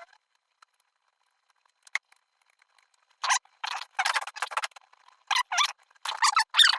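Small machined metal gun parts being handled and worked loose: a single click, then from about three seconds in a quick run of clicks, rattles and squeaks.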